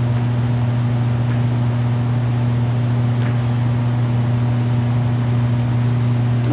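A steady, loud low hum with a second tone an octave above, unchanging, with a faint tick or two.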